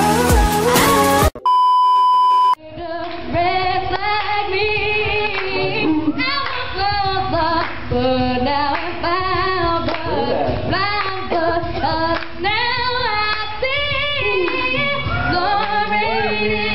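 A produced pop track for about a second, then a steady high test-tone beep for about a second. After that a woman sings a melody in a low-quality amateur recording that sounds dull and muffled.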